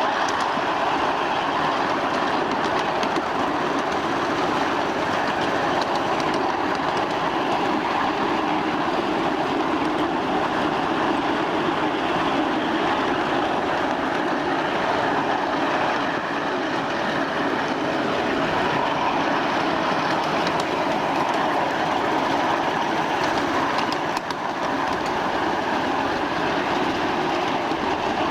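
1/8-scale ride-on miniature train rolling along its track: a steady rumble and rattle of small wheels on rail, with a brief dip about three-quarters of the way through.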